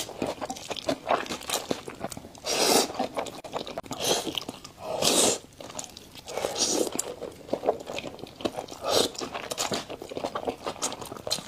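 Close-miked eating of spicy noodles: chewing with many small wet clicks, and a louder slurp about every two seconds.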